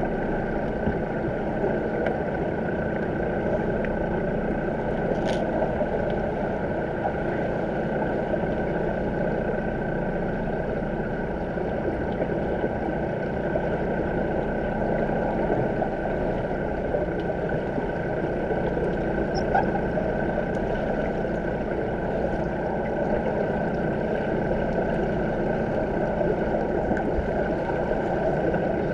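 Steady muffled underwater rumble and hiss of a swimming pool, heard through a camera sitting underwater on the pool floor, with a steady hum running through it and a single sharp click about five seconds in.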